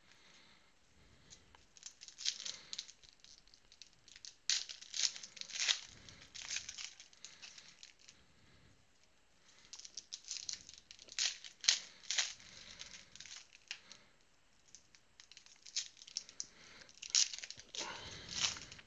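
Trading card pack wrappers crinkling and tearing as the packs are opened by hand, in irregular bursts of rustling with quieter gaps between.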